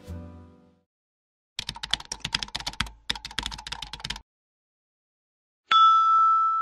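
Keyboard typing sound effect: a fast run of key clicks, with a short break about halfway through. Near the end, a sharp click followed by a ringing bell-like chime held for about a second, the loudest sound; a music tail fades out at the very start.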